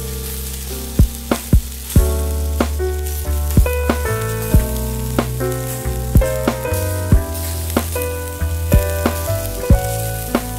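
Wagyu beef sizzling on a hot grill plate, a steady frying hiss with scattered sharp clicks. Background music plays underneath, with held chords over a bass line.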